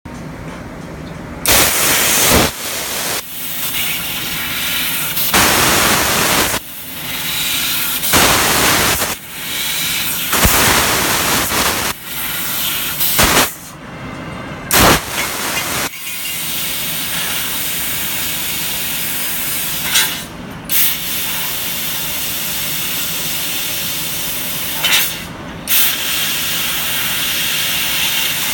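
CNC fiber laser tube cutter cutting square steel pipe: the cutting head's assist-gas jet hisses in short irregular bursts, then holds a steady hiss from about halfway, broken twice by brief gaps.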